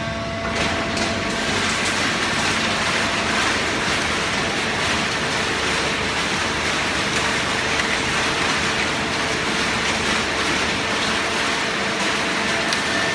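Automatic horizontal hydraulic cardboard baler running: a steady, dense mechanical noise with a faint steady hum underneath, which gets louder about half a second in.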